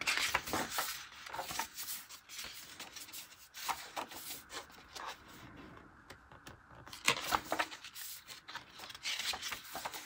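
Pages of an open-spine paper planner being turned one after another: repeated short paper rustles and swishes, with hands rubbing over the pages.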